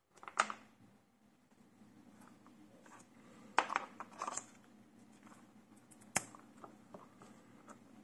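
Small plastic audio connectors and cables being handled: a few sharp clicks and scrapes as USB-C headphone adapters and 3.5 mm plugs are picked up and fitted, about half a second in, around four seconds in and about six seconds in. A faint low hum runs underneath from about a second and a half in.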